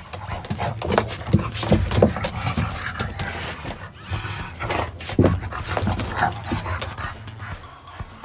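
A bulldog rolling and wriggling on its back in a ridged plastic tube slide, breathing hard and making short dog noises, while its body and paws scuff irregularly against the plastic.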